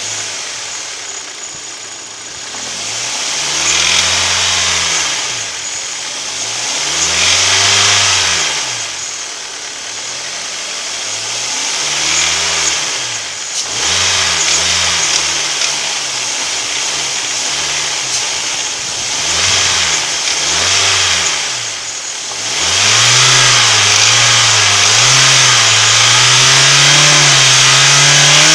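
Hyundai/Kia G4KD Theta II 2.0-litre four-cylinder engine revved up and let fall back again and again in short blips. From about 23 seconds in it is held at a steady raised speed with a slight waver. This engine is the one the owner says knocks, from its pistons, at idle and around 1500 rpm.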